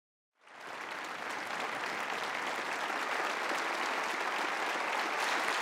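A large audience applauding: many people clapping together in a dense, steady wash that starts about half a second in.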